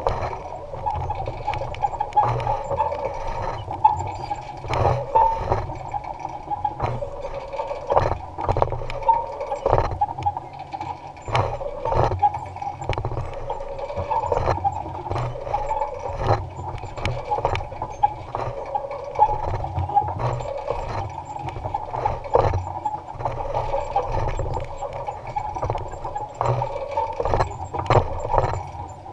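Electric-powered Allis-Chalmers Model G tractor running with a basket weeder: a steady whine over a low rumble, with frequent irregular clatter and knocks from the implement working the rows.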